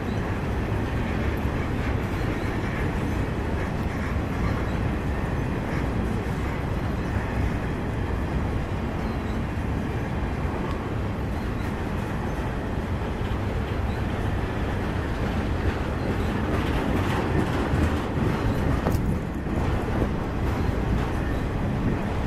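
Freight train of CSX flatcars loaded with welded rail rolling past: a steady rumble of steel wheels on the rails. A run of sharper clicks and clanks comes about three-quarters of the way through.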